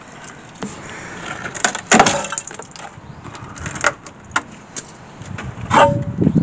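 Rusted rocker-panel sheet steel and hardened body filler cracking and clattering as the cut-out section is pulled away by hand: a series of sharp knocks and cracks, the loudest about two seconds in. The panel is rotten and stuffed with filler from an earlier botched repair.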